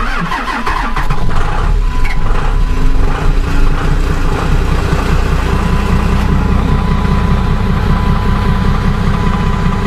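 Dodge Ram's 12-valve Cummins 5.9-litre straight-six turbo-diesel being cranked from cold on its batteries. It is a little slow to catch, then fires and settles into a steady diesel idle, with the starter held engaged for about six seconds until it runs smoothly on its own.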